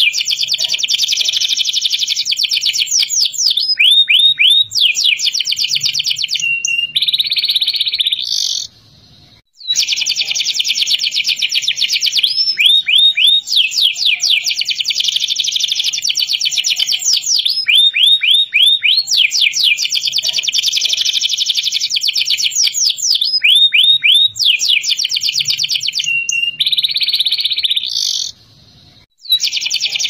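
Domestic canary singing a long, loud song of high, rapid trills and quick runs of repeated rising notes, broken by two short pauses, one about nine seconds in and one near the end. The same run of phrases comes round again.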